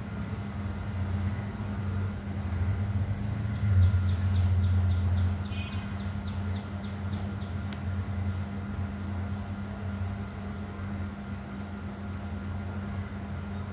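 A steady low hum that swells louder for about a second and a half, about four seconds in, with a few faint high ticks around the middle.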